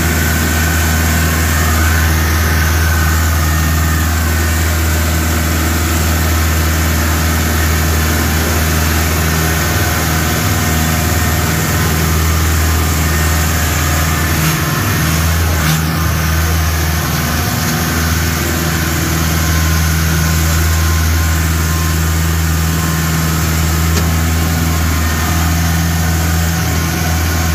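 A steady, low engine-like hum with an even hiss over it, unbroken throughout.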